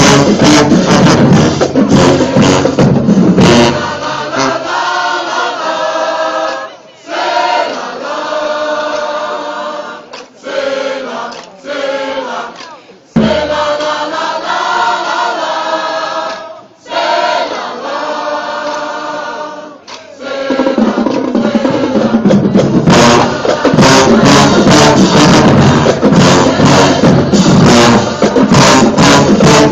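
College marching band playing loud with drums, then dropping to a softer passage of many voices singing together for about sixteen seconds, before the full band and drums come back in.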